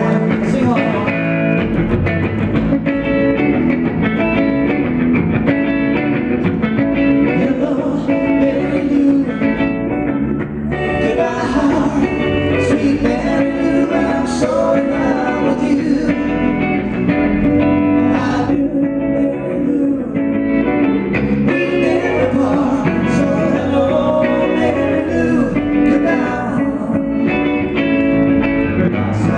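Live pop-rock band performance: two male voices singing together over electric guitar and bass guitar.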